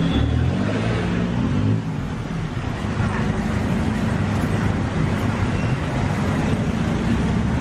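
Steady low rumble of road traffic and running engines under general street-market background noise.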